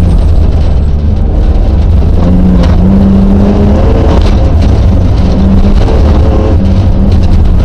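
Rally car engine running hard, heard from inside the cabin over road noise; loud, with the engine note stepping up and down as the revs change.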